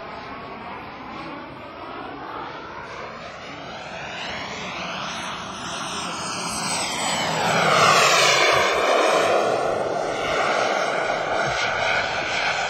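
Radio-controlled Scorpion model jet flying past, its engine growing louder to a peak about eight seconds in and then easing. A high whine drops in pitch as it goes by.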